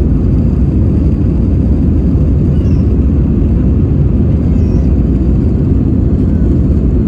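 Steady, loud cabin noise inside an Airbus A320 in flight: engine and airflow noise that stays even, heaviest in the low range.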